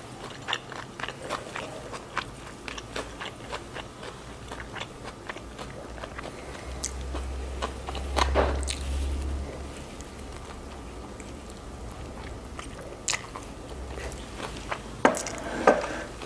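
Close-up chewing and biting into a Vietnamese fresh spring roll, with soft wet mouth sounds and small crunches of fresh lettuce. There is a louder bite about eight seconds in and a couple more near the end.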